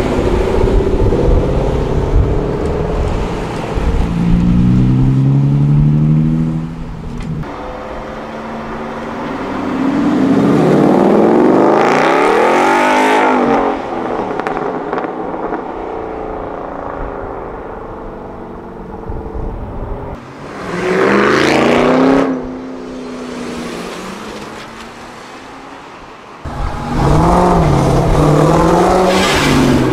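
Muscle car engines revving and accelerating hard in several separate loud pulls, the engine note rising and falling, with quieter running between the pulls.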